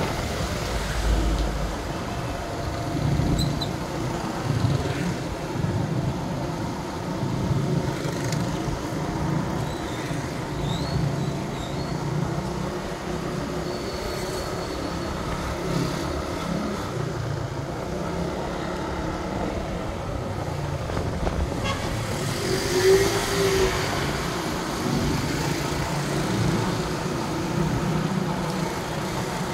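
Motorbike engine running while riding along a town street, with other traffic around. About three-quarters of the way through there is a brief louder burst with a short tone.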